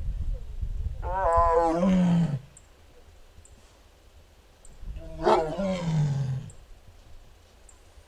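Siberian (Korean) tiger calling twice, two drawn-out calls about four seconds apart, each wavering and then sliding down low at the end.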